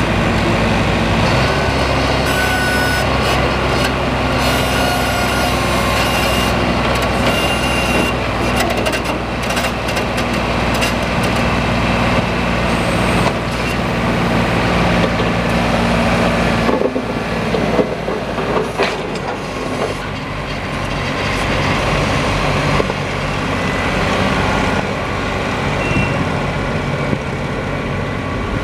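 New Holland TC33D compact tractor's three-cylinder diesel engine running steadily as the tractor drives slowly, its engine note shifting a little around the middle.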